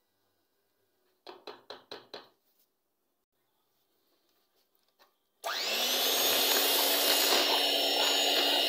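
Five short, quick strokes, then about five seconds in an electric hand mixer switches on and runs steadily with a constant whine, beating condensed milk into whipped cream.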